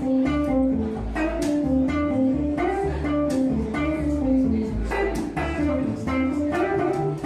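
Live band music: a hollow-body archtop guitar playing chords over a plucked upright double bass line.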